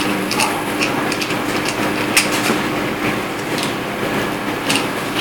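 Small screwdriver driving screws into a servo's plastic case, giving scattered light clicks and ticks, over a steady background hiss and hum.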